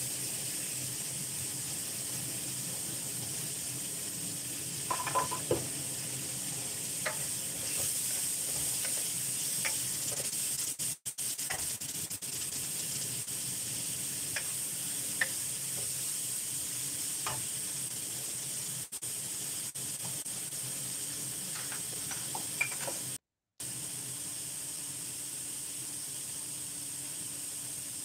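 Celtuce strips and sliced onions sizzling in a stainless steel wok, stirred with a wooden spatula that clicks and scrapes against the metal now and then. The sound cuts out for a moment late on.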